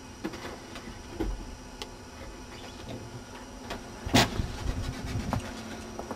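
Scattered clicks and knocks, with one loud sharp knock about four seconds in, over a steady hum.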